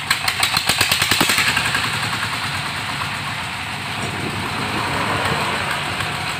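Stationary diesel engine of a well-drilling rig, just started: its separate firing knocks are distinct for about the first second, then settle into a steady run.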